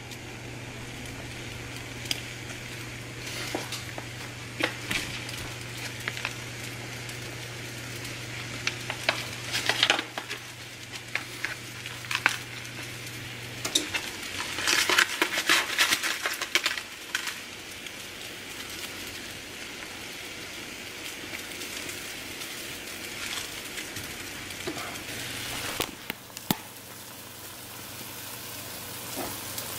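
Soup bubbling and simmering in a stainless steel pot on the stove, with scattered clicks and knocks as ingredients and utensils touch the pot. A denser stretch of crackling and splashing comes about halfway through as more ingredients go in, and a low steady hum stops around the same time.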